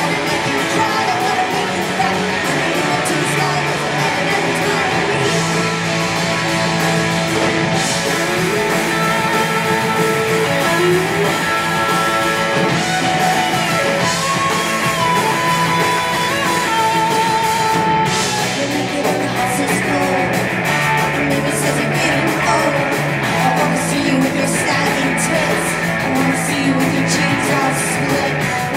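A rock band playing live, with electric guitar, drums and a singer's voice over the band.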